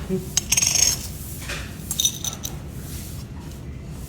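Tableware clinking: a few light knocks in the first second and one short ringing clink about two seconds in, over a steady low hum.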